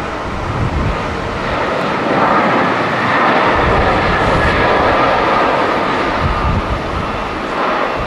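Twin jet engines of a Boeing 767 airliner running as it rolls along the runway, the noise swelling about two seconds in. Gusty wind rumbles on the microphone.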